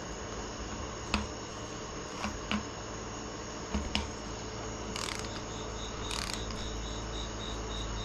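A cricket chirping in an even pulsing rhythm, about three chirps a second, clearest in the second half. A few light clicks and knocks sound over it.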